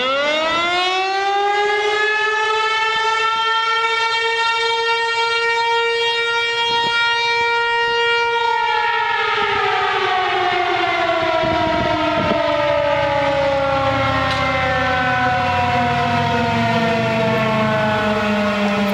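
American Signal T-135 electromechanical warning siren finishing its spin-up about a second in, holding one steady chord-like tone for about eight seconds, then winding down with a slowly falling pitch for the rest.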